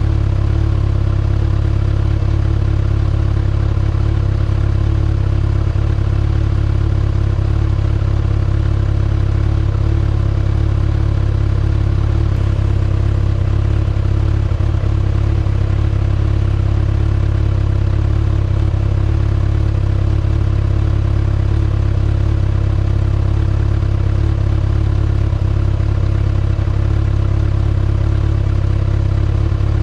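2019 Kawasaki ZX-6R's 636 cc inline-four idling steadily through its stock exhaust, with no revs.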